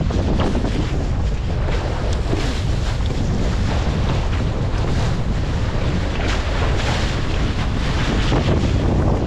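Strong wind buffeting the action camera's microphone, with water rushing and splashing past while under sail.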